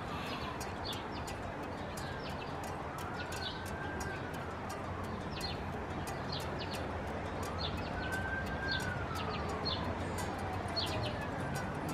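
Faint emergency siren wailing slowly up and down, about one rise and fall every four to five seconds, with small birds chirping.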